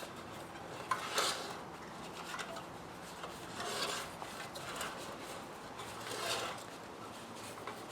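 Rubber rubbing and scuffing as a new inner tube is worked by hand into a fat bike tire, with three soft swishes spaced a couple of seconds apart.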